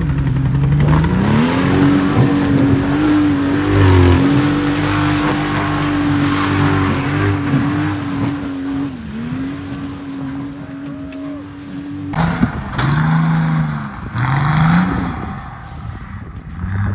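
Nissan Patrol off-roader's engine revving up about a second in and held at high revs for some ten seconds, with a dense hiss of tyres churning mud over it. Near the end the sound changes abruptly to the engine revving up and down at lower speed, twice.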